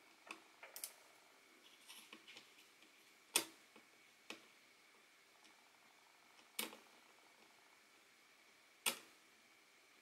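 Scattered sharp clicks and taps of a small screwdriver and an M.2 NVMe card against an open laptop's chassis as the card is seated in the slot and fastened. A few faint ticks come first, then single louder clicks a second or more apart.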